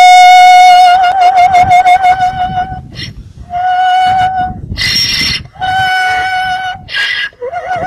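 A donkey brays in long, pure, singing-like held notes, the first wavering with a vibrato. Three short harsh breaths break the notes apart. The bray is unusually tuneful, likened to an operatic voice.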